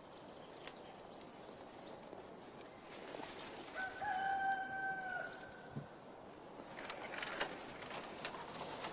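A rooster crows once, a held call lasting about a second and a half, around four seconds in. A few faint clicks and rustles follow near the end.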